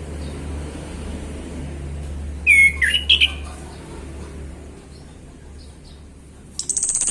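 Male orange-headed thrush singing: a short burst of loud whistled notes that slide up and down, about two and a half seconds in. A rapid, high buzzing trill starts near the end.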